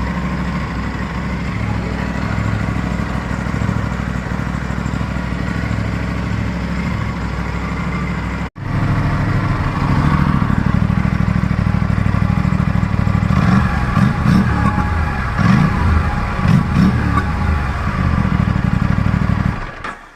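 Aprilia RS 457 parallel-twin engine through its stock exhaust, idling steadily at first. About two-thirds of the way through it gets louder, with several quick revs that rise and fall, then cuts off just before the end.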